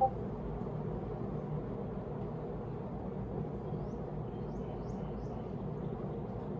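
Steady background noise of outdoor ambience. A short sharp click comes right at the start, and a few faint high chirps come a little past halfway.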